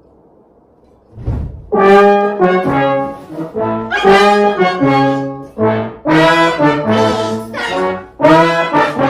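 A brass instrument plays a run of short, separate notes that step up and down in pitch, starting about a second and a half in and continuing to the end.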